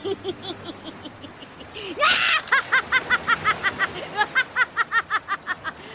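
A person laughing: low chuckles at first, then a sharp breath about two seconds in, followed by rapid high-pitched giggles, about four or five a second.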